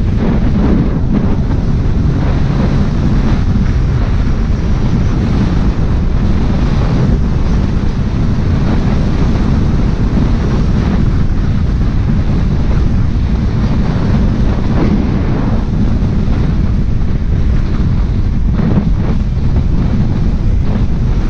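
Loud, steady wind buffeting the microphone, a dense low rumble without pause.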